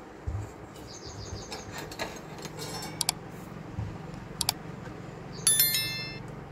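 A desktop motherboard being handled on a silicone work mat: a dull thump as the board is set down, then scattered light clicks and knocks. Near the end comes a sharp metallic clink that rings for about half a second, over a low steady hum.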